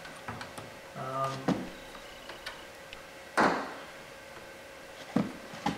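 Clicks and knocks of a stainless vent visor and its retaining clips being pushed into a truck door's window channel. The loudest is one sharp snap about halfway through, with two more knocks near the end.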